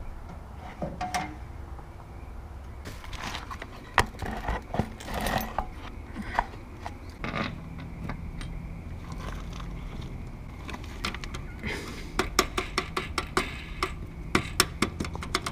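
Metal clicks, taps and scrapes of hand work on a box truck's rear door bolt and hinge hardware, with a quick run of clicks near the end. A low steady hum comes in about halfway.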